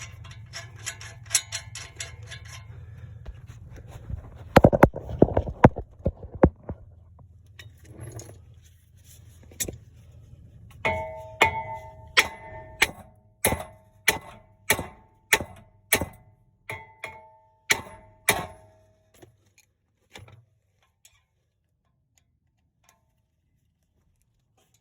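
Hammer blows on a rusted-on brake rotor. A few heavy knocks are followed by a steady run of about a dozen ringing metal strikes, roughly one every two-thirds of a second, then a few lighter taps.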